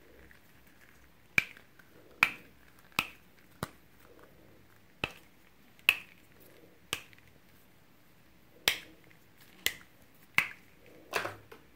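Sharp plastic snaps, about eleven at irregular intervals of roughly a second: artificial plastic cherries being pulled off their stems one by one.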